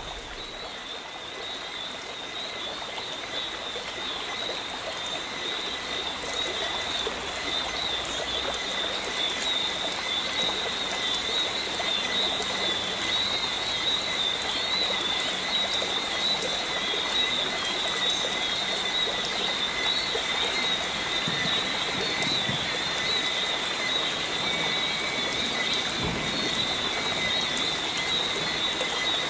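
Tropical forest ambience: a steady hiss of falling water under a continuous high-pitched frog chorus. It fades up over the first several seconds, then holds steady.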